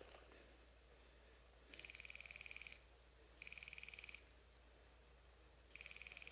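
A high, rapid trilling call, about a second long, heard three times roughly two seconds apart over near silence.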